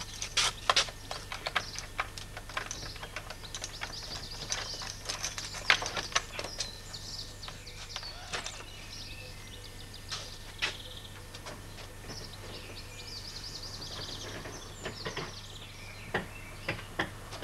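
Small birds chirping and singing in the background, with scattered light knocks and clicks from a wooden door and wooden panels being handled.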